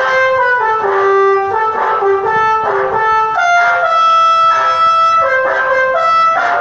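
Bus 'telolet' musical air horn playing a melody of brassy horn notes, one after another in quick steps, each held for a fraction of a second.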